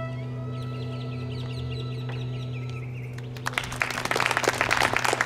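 The last held notes of a children's music ensemble fading, with a few high chirping sounds, then audience applause starting about three and a half seconds in.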